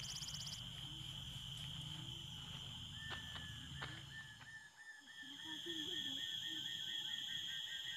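Tropical forest insects droning steadily at a high pitch; about three seconds in, a fast, even run of chirps, roughly five a second, starts up and keeps going.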